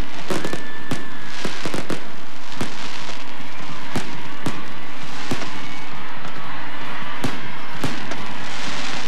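Fireworks going off: an irregular string of sharp bangs, from one to several a second, with crackling between them.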